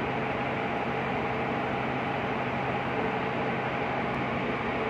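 Steady machinery drone of a ship's engine room, an even noise with a constant low hum and a few steady tones above it, no single machine standing out.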